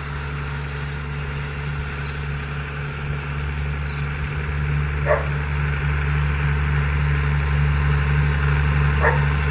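Farm tractor engine running steadily and growing slowly louder, with two short barks, one about five seconds in and one near the end.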